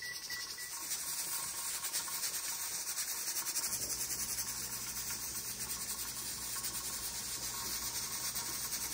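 A few short beeps from an electric range's timer keypad as its buttons are pressed, over a steady hiss. A low hum joins the hiss after about three and a half seconds.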